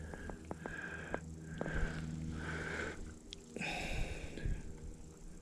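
A man breathing hard and fast, a quick rhythmic hiss a little under once a second, with a few light clicks of handling early on and a louder rustle partway through.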